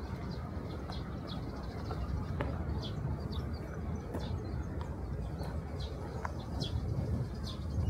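Small birds chirping, short sharp high notes repeated every half second or so, over a steady low rumble of outdoor background noise.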